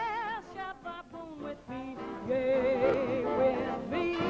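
A female jazz singer holds wordless notes with wide vibrato over a band, in a swing arrangement of a ballad.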